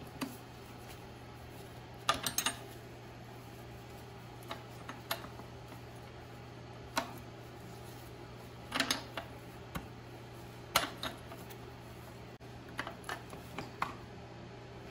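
Steel wrench clicking and clinking against a fuel line's flare-nut fitting as the line is tightened back up at the fuel pump: scattered short metallic clicks, some in quick clusters of two or three, over a steady low hum.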